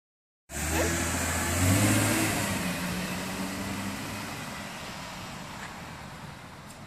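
Chevrolet Camaro engine revving as the car accelerates, stepping up in pitch and loudest about two seconds in, then fading steadily as the car moves off.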